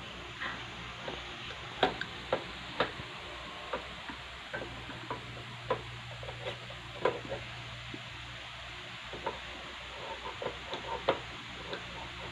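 Plastic packaging and parts being handled while unboxing computer gear: scattered light clicks and crinkling. A low hum comes in for about four seconds in the middle.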